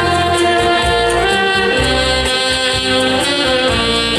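A saxophone ensemble plays a Hakka folk tune together, holding long melody notes over a steady bass line.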